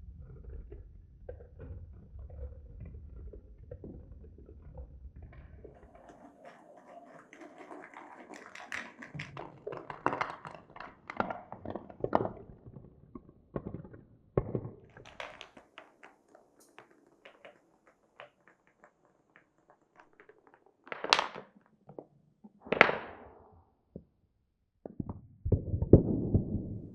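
Marbles rolling and clacking through a wooden marble run: a low rolling rumble at first, then a string of clicks and knocks as they drop and hit the pieces. Later come two sharp knocks a couple of seconds apart, and a clattering rattle near the end.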